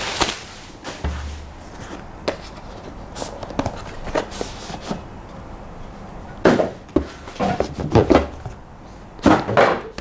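Packaging being handled: a rigid cardboard box knocked and scraped as its lid is lifted off, with papers rustling, the busiest stretch in the second half. Plastic bubble wrap crinkles at the start.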